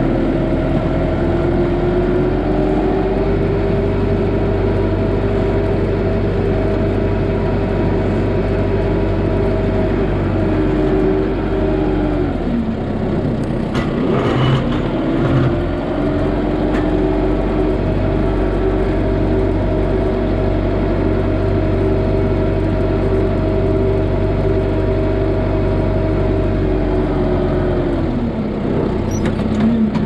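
Kubota M6060 tractor's four-cylinder diesel engine working a front snow blade: it revs up near the start and holds steady, drops back toward idle a little before halfway with a few clunks, then revs up and holds again before dropping once more near the end.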